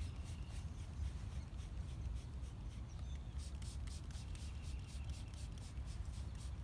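A hand spray bottle squirting sugar water onto package honeybees in quick repeated hisses, several a second, over a steady low rumble.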